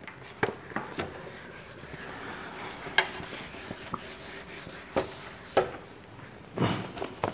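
Board duster wiping marker writing off a whiteboard: a dry, even rubbing, with several light knocks and taps scattered through it.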